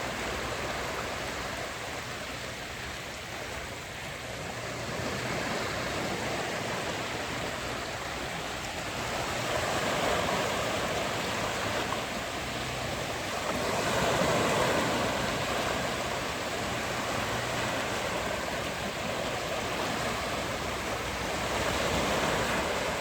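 Sea waves breaking and washing up a beach, a continuous surf wash that swells louder as waves break, around ten, fourteen and twenty-two seconds in.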